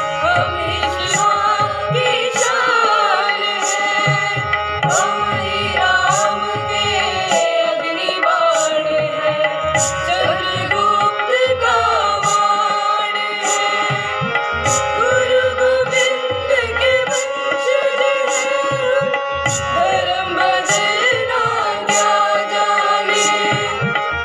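A school choir singing a song together into microphones, accompanied by hand-drum beats and a regular high metallic tick keeping time.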